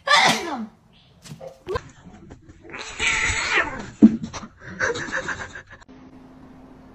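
Domestic cats meowing and yowling in several separate calls: a short falling meow at the start, then longer yowls about three and five seconds in.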